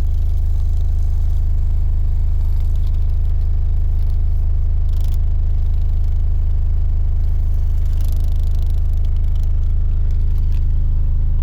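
MACH Audio sealed car subwoofers, driven by a Sundown SAM 500D amp, playing a steady, very loud sub-bass test tone inside the car cabin: a constant deep drone with a buzz of overtones above it.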